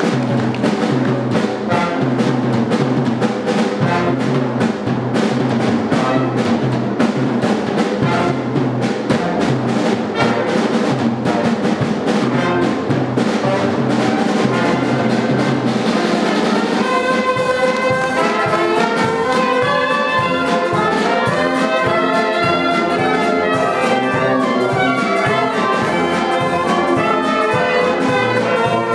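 Live jazz band of trumpet, trombones, saxophones, clarinet and tuba playing together. For the first half, drums and cymbals keep time over a low bass line. About halfway through, the drums fall back and the horns play held chords as a section.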